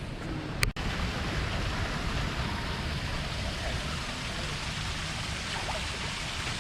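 Steady rushing of water, with a sharp click and a momentary dropout just under a second in.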